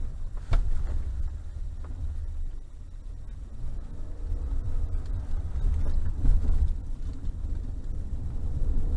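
Mercedes 4x4 driving through a flooded stretch of off-road track, heard from inside the cabin: a steady low rumble of engine, tyres and water, with a sharp knock about half a second in.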